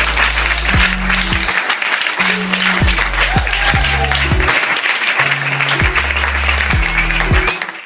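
Background music with deep bass notes that slide down in pitch, under a dense applause-like hiss; it all cuts off abruptly near the end.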